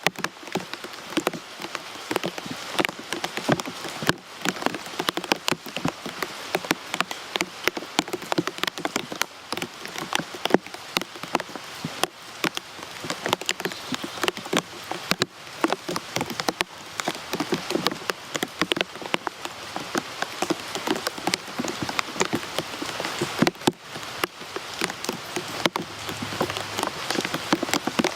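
Rain falling on a hard surface: a steady hiss with many separate drops and drips striking sharply and irregularly.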